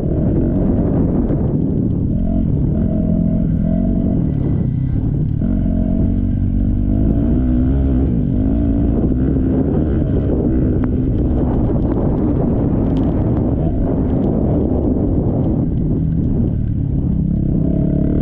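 MX1 motocross bike engines racing, revving up and down as riders work the throttle, rising and falling in pitch throughout.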